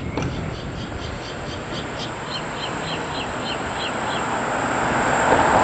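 A bird repeating a short high chirping note about three to four times a second, stopping about four seconds in, over a steady rushing noise that grows louder toward the end.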